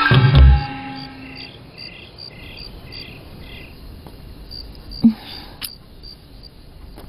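Crickets chirping in short, evenly repeated pulses. A music cue ends on a loud low hit in the first half-second, and a single thump sounds about five seconds in.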